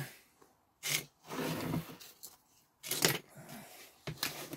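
Hands handling a plastic Mod Podge jar and twisting off its screw lid: several short knocks and a brief stretch of plastic scraping.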